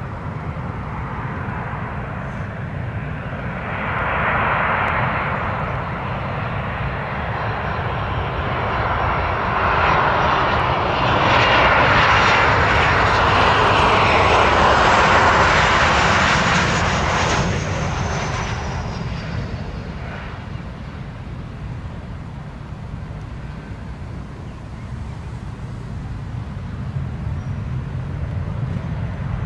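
Boeing 737 airliner's twin turbofan engines on final approach, swelling to a loud rushing whine as the jet passes low, its high whine falling in pitch as it goes by, then easing off toward touchdown on the wet runway. A low rumble runs underneath throughout and grows near the end.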